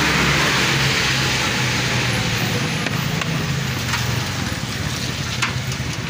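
Steady background rumble and hiss with a low droning hum, and a few short clicks in the second half.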